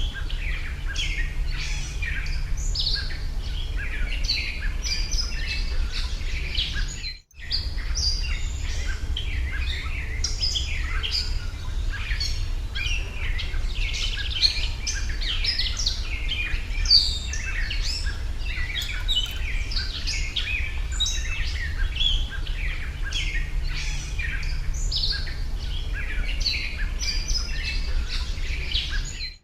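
Many small birds chirping and calling continuously, with many short, quick chirps, over a steady low hum. The sound cuts out briefly about seven seconds in.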